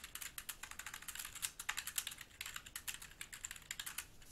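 Typing on a computer keyboard: a quick, fairly faint run of keystrokes that thins out near the end.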